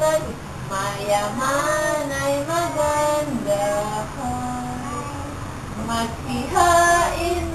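A young child and a woman singing a melody together.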